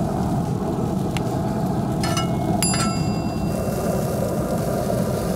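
Shishito peppers sizzling steadily on a hot oiled griddle, with a metal utensil striking metal twice about two seconds in, the second strike ringing on for about a second.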